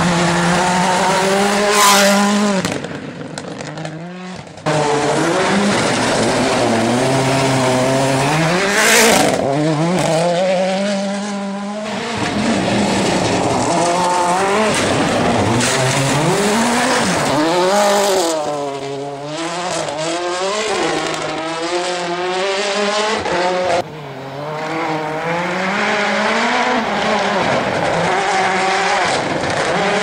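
Mini Countryman WRC rally car's 1.6-litre turbocharged four-cylinder engine revving hard at full attack on a gravel stage, its pitch repeatedly rising and falling. Sudden jumps in the sound a few seconds in and near the end mark cuts between passes.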